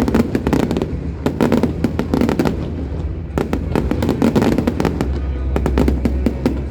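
Aerial fireworks bursting in rapid volleys of many sharp cracks and bangs, in several dense clusters one after another. A steady low rumble joins in about five seconds in.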